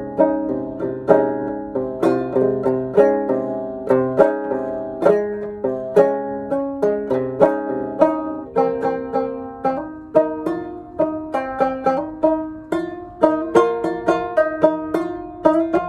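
Five-string banjo played solo, an improvisation in the Phrygian mode: single plucked notes, a few a second, each ringing and dying away, with quicker runs in the second half.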